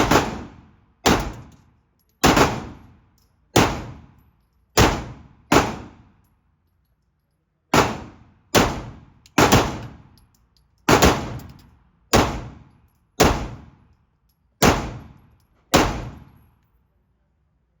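Fourteen gunshots from a gun fired at a target, roughly one a second with a pause of about two seconds midway, each shot sharp and followed by a short echoing tail.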